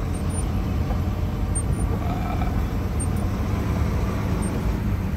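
Steady low rumble of a truck's engine and road noise, heard from inside the cab while driving on a wet highway.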